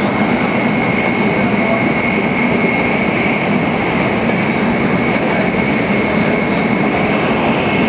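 Tokaido Shinkansen Nozomi bullet train running at high speed: a steady rushing noise with a constant high whine.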